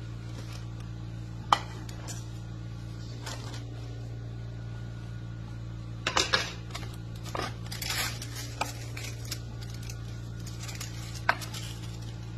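Dishes and utensils clinking and knocking at a kitchen sink: a sharp clink about a second and a half in, a cluster of clatters around the middle, and another clink near the end, over a steady low hum.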